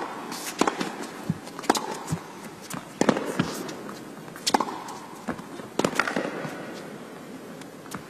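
A tennis rally: the ball is struck back and forth with racquets, with sharp hits and bounces coming about every one to one and a half seconds.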